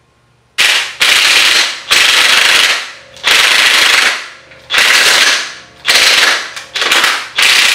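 A power tool run in about eight short bursts, each starting sharply and dying away within a second.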